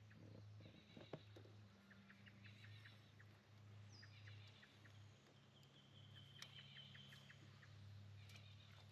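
Faint bird calls: series of short high chirps and a brief high trill, over a low steady hum.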